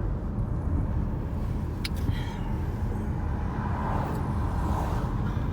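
A car being driven, with a steady low rumble of engine and road noise. There is a single short click about two seconds in.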